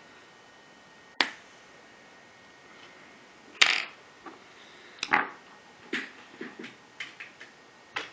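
A pry tool working the cracked glass off an iPhone 3GS screen, giving sharp clicks and snaps: one about a second in, a louder snap past three and a half seconds, then a run of smaller clicks over the last three seconds.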